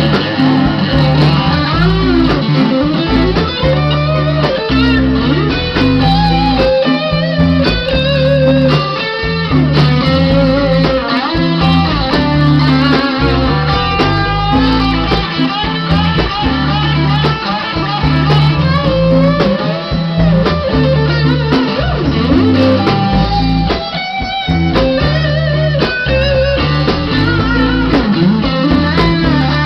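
Live rock band playing an instrumental passage with electric guitars, bass and drums, a lead guitar line bending and wavering in pitch over the band.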